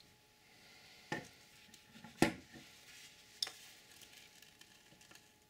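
Three short knocks, the middle one the loudest, over a faint steady hiss.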